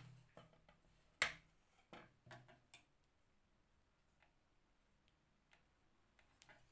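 Light taps and clicks of fingertips pressing glued woolen thread onto a sheet of paper on a tabletop: one sharp click about a second in, a short cluster of smaller ones a second later, then only faint ticks.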